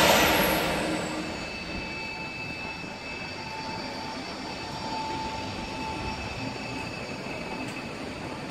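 SNCB AM 96 electric multiple unit pulling out and rolling past, with steady high whining and squealing tones over the rolling noise of its carriages. A sudden loud hiss comes at the very start and dies away over about a second and a half.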